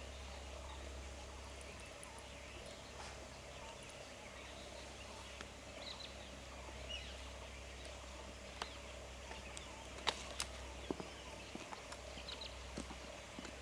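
Faint outdoor wildlife ambience: scattered bird chirps and calls, with a few sharp clicks, loudest about ten seconds in, over a low steady hum.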